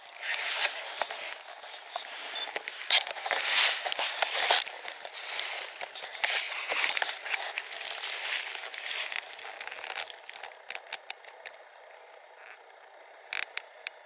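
Dry leaves and twigs rustling and crackling, with many sharp crunches over the first ten seconds, then quieter with a few clicks near the end.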